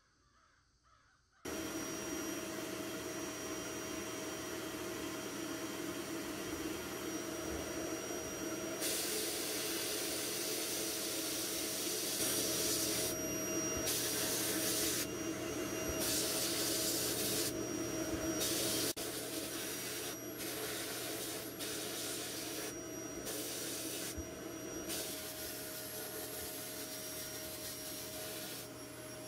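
Sandblasting cabinet: a steady machine hum starts abruptly about a second and a half in. From about nine seconds in, the blast gun fires in repeated bursts of hissing air and abrasive, on and off every second or two, blasting rust off small steel airgun parts.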